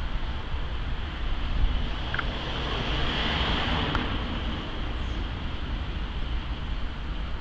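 Steady low outdoor rumble, with a passing vehicle whose hiss swells and fades about three to four seconds in.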